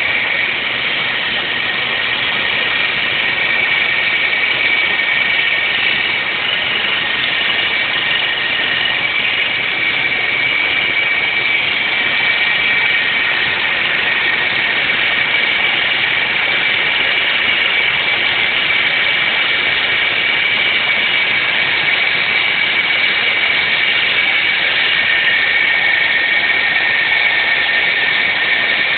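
2006 Hyundai Sonata 3.3-litre V6 engine running with a steady high-pitched whine, several thin tones held over the engine noise, one of them growing stronger near the end. The owner does not know its cause.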